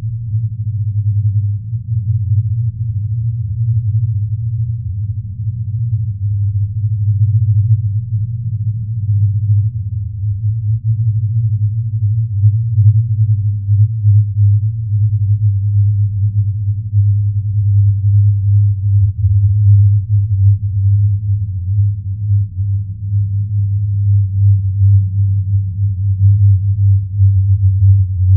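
A deep, steady electronic hum: a synthesized sci-fi drone with a slight waver, growing a little louder toward the end.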